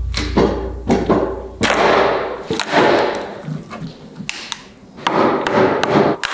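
A wood chisel being struck to chip a groove out of a wooden 4x4 beam: about ten sharp knocks at uneven intervals.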